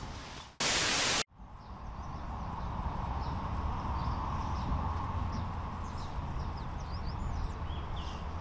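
A loud burst of static hiss lasting about half a second, cut off sharply, then outdoor ambience fading in: a steady rumble of distant expressway traffic with small birds chirping over it.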